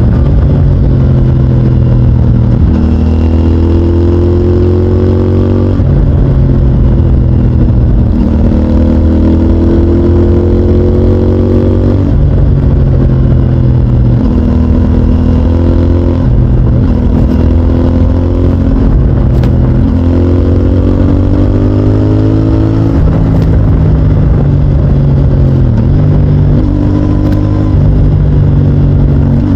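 CFMOTO 450NK motorcycle's parallel-twin engine through its stock exhaust, pulling hard through the gears. The pitch climbs, then drops at each shift, over and over.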